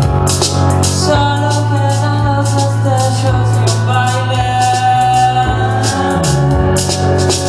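Live rock band playing: drums with regular cymbal strokes, a bass holding long low notes, and a sustained melody line over them.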